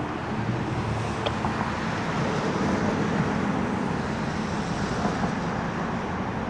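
Steady road traffic noise with no siren sounding.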